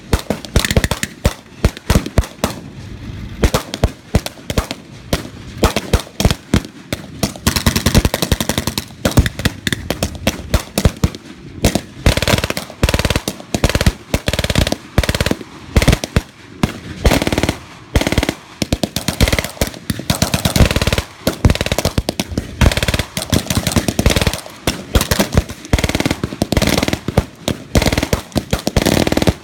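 Blank gunfire from WWII-era rifles and machine guns, many sharp shots and rapid bursts overlapping with hardly a pause.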